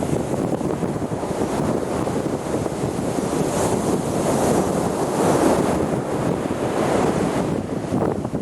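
Sea waves washing onto the shore in a steady surf, with wind buffeting the microphone. One wave swells louder in the middle.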